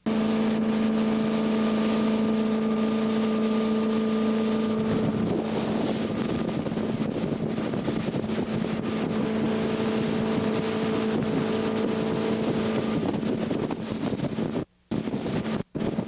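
Boat motor running at speed with a steady hum under wind and rushing water. About five seconds in the hum fades into mostly wind noise on the microphone, then comes back faintly. The sound cuts out briefly twice near the end.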